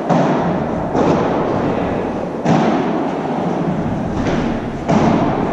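Padel rally: a ball struck back and forth with solid padel rackets, about five sharp hits roughly a second apart, each ringing on in the echo of a large indoor hall.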